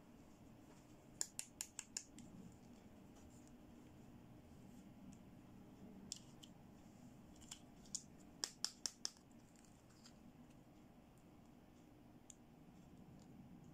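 Small plastic toy accessories clicking and tapping as they are handled: a quick run of about five sharp clicks a second in, another run of four or so clicks midway, and a few single faint ticks, over near silence.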